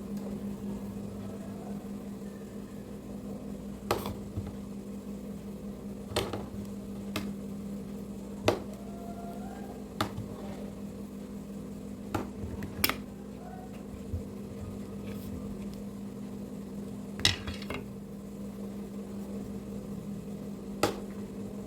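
A small spoon knocking and clinking against a pan or plate about a dozen times at irregular intervals as it scoops out portions of setting jaggery toffee, over a steady low hum.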